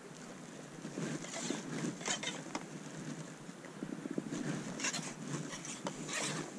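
Wind buffeting the camera microphone in an uneven rumble, with a few brief rustling swishes mixed in.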